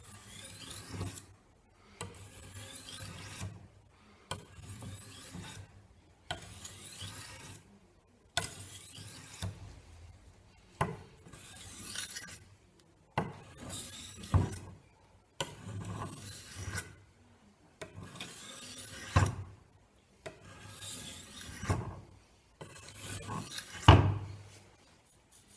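A steel knife blade being drawn across a fine-grit sharpening stone in long, even strokes, about a dozen, each a second or two long with short pauses between, as the edge is finished. A few sharp clicks come between strokes, the loudest near the end.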